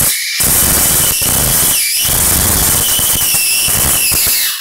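High-voltage arc drawn in open air from a Fujitsu CRT monitor's flyback transformer: a loud, continuous tearing, ripping crackle, breaking off briefly about two seconds in and again near the end.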